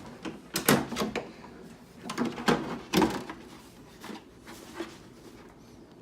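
A string of irregular knocks and clicks, hard plastic on plastic, as the Traxxas X-Maxx's plastic body shell is handled and fitted onto the truck. The knocks are loudest in the first half and thin out towards the end.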